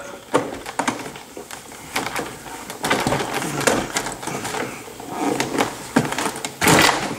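Volkswagen Passat plastic door trim panel being worked up off its plastic retaining clips: a run of irregular plastic clicks, creaks and knocks, with a louder cluster near the end.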